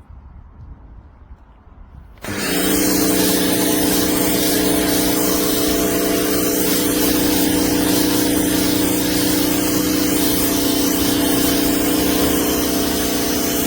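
Electric pressure washer cutting in about two seconds in and running steadily: a motor hum under the hiss of the high-pressure jet spraying.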